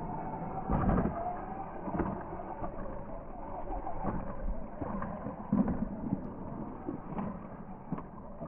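DEERC 9310 1:18-scale RC monster truck driving over rough ground: its electric drive whines and the truck knocks and bumps several times as it bounces along.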